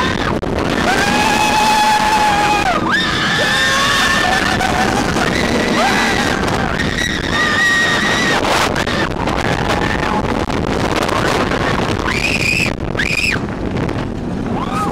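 Roller coaster riders screaming on the Incredible Hulk coaster: several long, held screams overlapping one another, with two short high shrieks near the end. A steady rush of wind and ride noise runs underneath.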